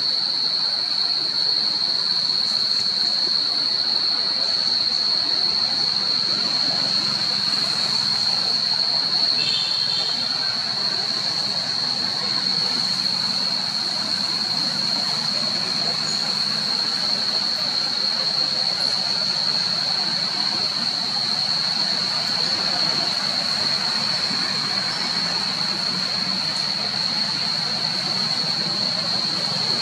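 Insects droning in a steady, high-pitched chorus that does not let up, over a hiss of forest background.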